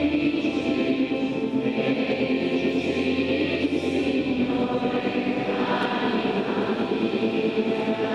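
Church choir singing a hymn in long held notes, with no breaks.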